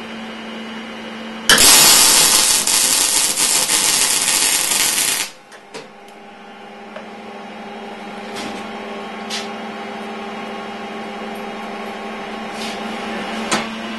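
MIG welder arc crackling and hissing for about four seconds as a short continuous bead is run along a joint in square steel tube. It starts about a second and a half in and cuts off abruptly, with a steady low hum underneath throughout and a few faint ticks after the arc stops.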